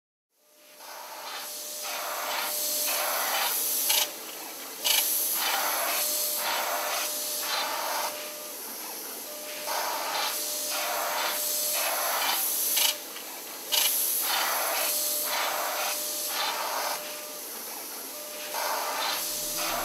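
Airbrush head of a Michelangelo digital airbrush system spraying paint: a hiss of air that comes in short on-off bursts, with a faint steady tone under many of them. It fades in at the start and cuts out briefly twice.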